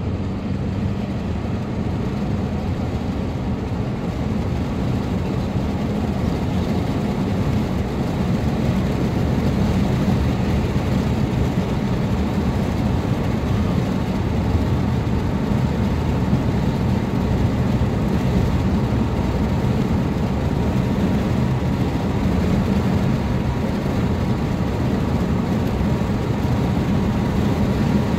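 Diesel locomotive engine working hard under load, a steady low rumble that grows slightly louder.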